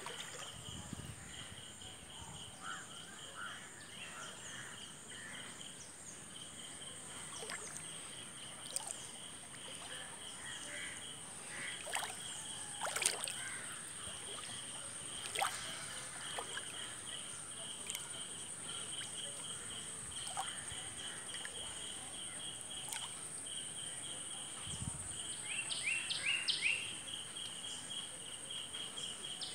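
Outdoor insect chorus: a steady high-pitched buzz over a chirping insect pulsing in runs. A few sharp clicks fall around the middle, and near the end a bird gives a run of quick sweeping calls.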